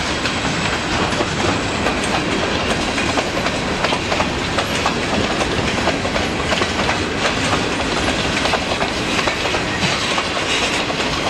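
Escanaba & Lake Superior freight cars rolling past at close range: a steady, loud rumble of wheels on rail with irregular clicking and clanking as the wheels cross rail joints.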